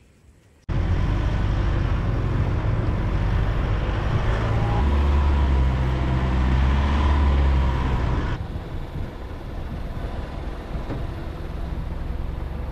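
A 4WD vehicle driving along a sandy track: steady engine drone with tyre and wind noise picked up by a camera on the bonnet. It starts suddenly under a second in, the engine note shifts about five seconds in, and it runs a little quieter over the last few seconds.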